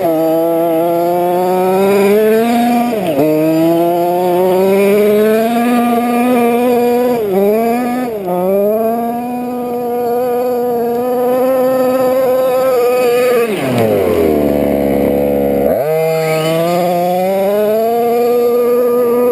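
Rovan LT305 30.5cc two-stroke gas engine of a Losi 5ive-T RC truck running at high revs, its pitch dipping and climbing back a few times as the throttle is eased and reapplied. About two-thirds through it winds down to a low idle for a couple of seconds, then revs sharply back up.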